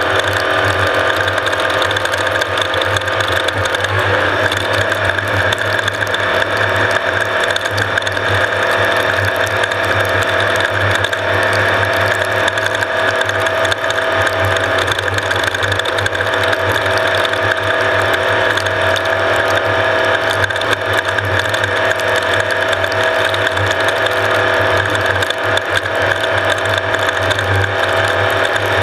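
Off-road race vehicle running steadily at speed, its engine tone under a dense, continuous mechanical rattle.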